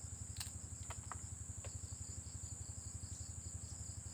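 Steady chirping of crickets or similar insects, a high trill pulsing several times a second over a low fast throbbing hum. A few light cracks and clicks in the first two seconds as tamarind pods are broken and handled over a plate.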